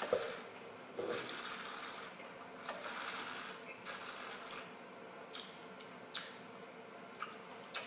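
A person tasting red wine: several hissing, rattly draws of air through a mouthful of wine over the glass, followed by a few short lip smacks and mouth clicks.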